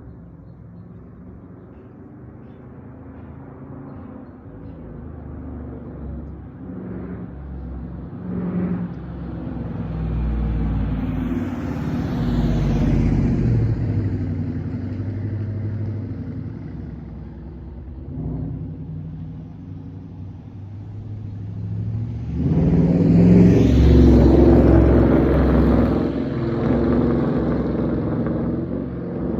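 Dodge Charger Daytona's V8 through a Flowmaster Outlaw exhaust at low street speed: a deep exhaust rumble that swells twice as the throttle opens, about ten seconds in and more loudly just past twenty seconds, easing back between.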